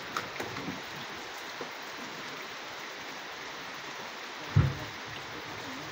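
Heavy logs being loaded by hand onto a truck: a few light wooden knocks early on, then one loud, dull thud about four and a half seconds in as a log lands on the load. A steady hiss runs underneath.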